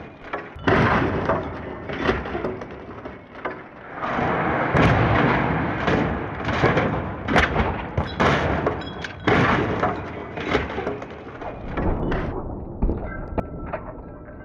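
Volvo cars rolling over in rollover crash tests: repeated hard impacts as the bodies hit the pavement, with crunching sheet metal, scraping and breaking glass in between. The hits come thickest through the middle and ease off near the end.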